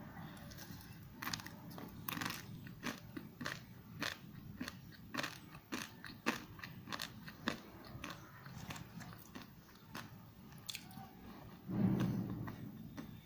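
Close-up eating sounds of spicy Wai Wai instant noodles: a run of crisp crunches and chewing, several a second. A louder, duller sound rises about twelve seconds in.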